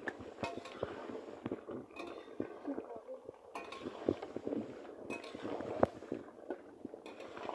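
Metal utensils clinking and knocking against a cooking pot and plate, in scattered light strikes, as the fried chicken curry is served out.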